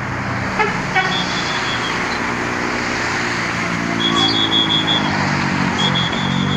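Large diesel bus engine running at a steady idle amid road traffic noise. Short high-pitched tones come through about a second in, around four seconds in and again near the end.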